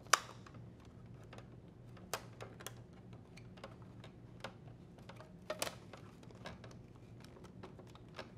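Scattered light clicks and taps of hands pressing an adhesive control board shield onto a washer's plastic backsplash and control board, sounding rather like soft typing. The sharpest tap comes just after the start, with another about five and a half seconds in.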